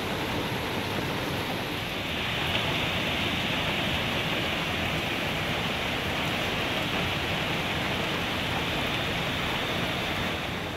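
Heavy rain falling steadily as a dense, even hiss, growing a little louder about two seconds in.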